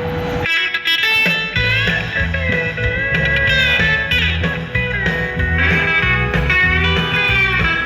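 Background music: the instrumental break of a country song, with a guitar playing bent, sliding notes over a steady bass line.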